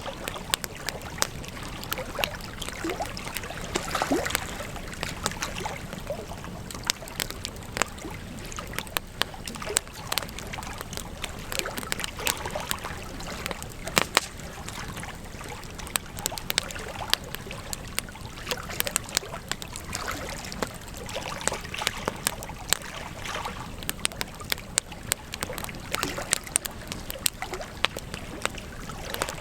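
Wood campfire burning, with dense irregular crackles and sharp pops over a steady hiss of flames.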